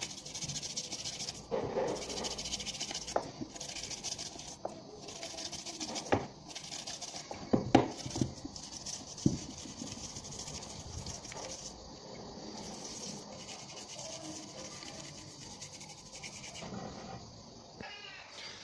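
An LPG regulator's diaphragm being worked and scrubbed with a toothbrush in a bucket of water to soften and lift the deposits: a steady rustling scrub with water sloshing, and a few sharp clicks and knocks against the plastic bucket, loudest about eight seconds in.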